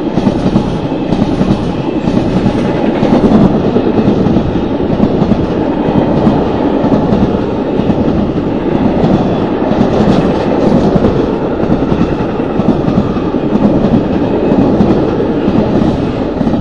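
Passenger train coaches passing at close range: a loud, steady rumble with wheels clattering over the rails. It begins to fade at the very end as the last car goes by.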